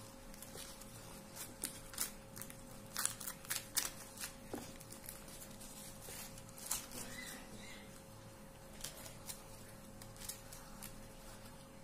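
Cooked, partly charred banana-leaf parcels being peeled open by hand: soft crinkling and scattered papery crackles at irregular intervals, over a faint steady hum.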